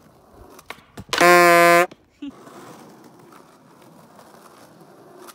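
A single horn blast about a second in: one loud, steady tone lasting about three-quarters of a second. Around it there is only faint background noise with a few light clicks.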